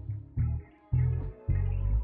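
Background music: a beat with heavy bass notes that start and stop, and a guitar.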